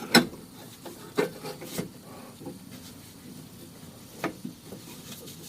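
A few sharp knocks and clicks from exhaust parts and tools being handled while a bypass pipe is fitted under a car, the loudest just at the start and others about a second, two seconds and four seconds in.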